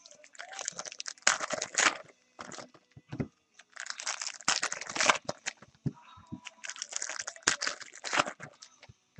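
Trading-card pack wrappers being torn open and crinkled, with cards handled, in several irregular spells of rustling and tearing. The packs are 2011 Bowman Platinum baseball packs.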